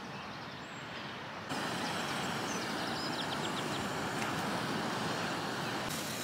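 Wind and sea surf for the first second and a half, then a steady hiss of a gas canister stove burning under a titanium pot.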